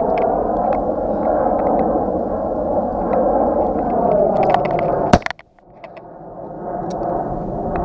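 Steady rushing noise on the camera's microphone, with scattered small clicks as camouflage netting brushes and knocks against it. A little over five seconds in there is one sharp click, the sound drops out almost completely, and then it fades back up to the same steady noise.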